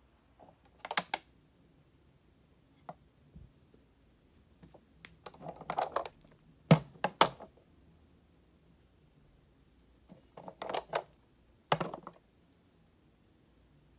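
Clicks, taps and light scrapes of a 1/18 scale diecast Ford Explorer model being handled by hand and moved across a hard surface, in three short clusters: about a second in, around the middle, and again near the end.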